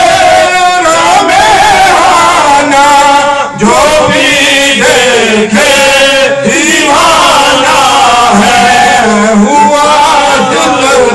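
A man's voice chanting a madh, a devotional praise poem, in long held notes that waver and slide in pitch.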